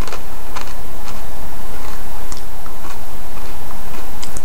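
Someone chewing Ruffles lime and jalapeño potato chips: short, crisp crunches at uneven intervals, about one a second, over a steady low background hum.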